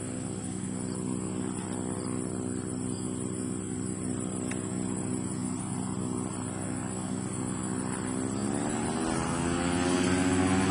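Rotax 912 ULS flat-four engine of a Zenair STOL CH 701 light aircraft running steadily at low power, driving its propeller. About eight seconds in, the pitch starts to rise and the sound grows louder as power comes up for takeoff.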